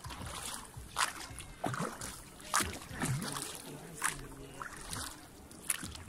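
Rowboat oars dipping and splashing in the lake water, a stroke about every second and a half.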